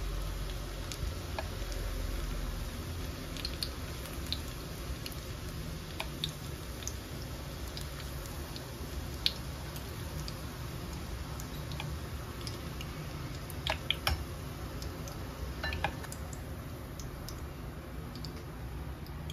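Sweet potato leaf and tofu fritters frying in hot oil in a pan: a steady sizzle with scattered crackles and pops. A few sharper clicks come as metal tongs lift the fritters out.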